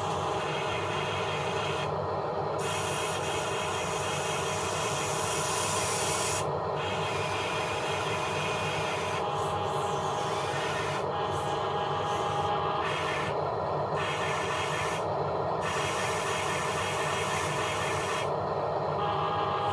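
Continuous scraping, rubbing noise. Its hissy upper part cuts out briefly several times.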